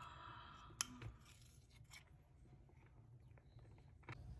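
Near silence, with faint scraping and a few light clicks of a utensil against a glass bowl as melted chocolate is poured and spread; one sharper click comes a little under a second in.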